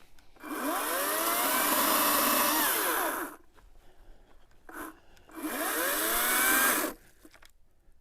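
Echo ECCS-58V battery chainsaw running in two short bursts, about three seconds and then a second and a half, its motor pitch sweeping up and down. Each burst cuts off abruptly: the battery is running out of charge.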